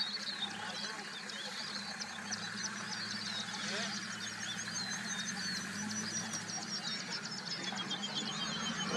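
Several wild birds singing: rapid high chirps and whistles, with a fast, evenly repeated high note from about four seconds in and a short falling trill near the end, over a low steady hum.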